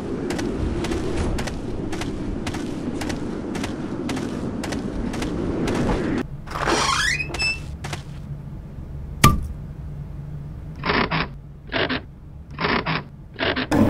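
Cartoon sound effects: footsteps about twice a second over a steady hum for the first six seconds. A rising creak and a single sharp knock follow. Then comes a run of short scrapes as a slatted wooden shutter is forced up, ending in a loud clatter.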